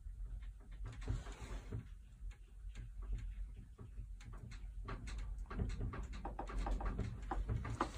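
Irregular rapid clicks and knocks of wardrobe doors and room furniture rattling in earthquake shaking, over a low rumble. The rattling grows denser and louder about five seconds in.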